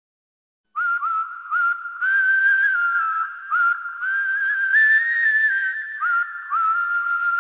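A whistled tune: a single melodic line of short notes, several of them scooping up in pitch at their start, beginning about a second in.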